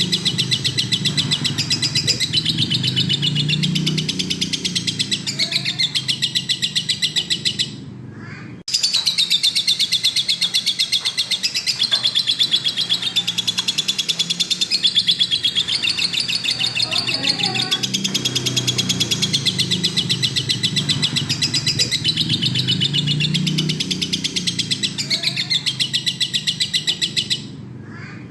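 Lovebird singing a long, very rapid chattering trill, the continuous 'ngekek' song prized by keepers, broken by short pauses about eight seconds in and near the end.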